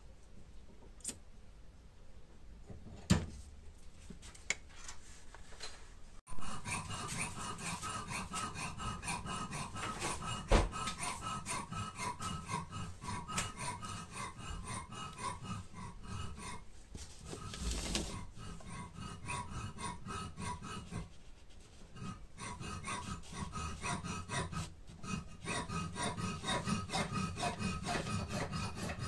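A few faint clicks, then from about six seconds in a fast, even run of rubbing or rasping strokes, several a second, that carries on with brief pauses.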